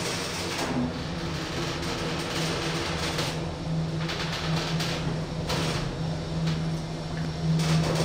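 A KONE EcoDisc gearless traction lift running upward, heard from inside the car: a steady low hum with an even running noise of the car in the shaft, the hum growing stronger about two seconds in.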